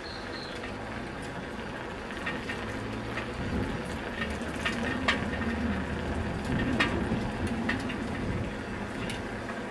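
Wind buffeting the microphone and road noise while riding a bicycle over brick paving, with scattered clicks and rattles from the bike. The low rumble swells through the middle and eases near the end.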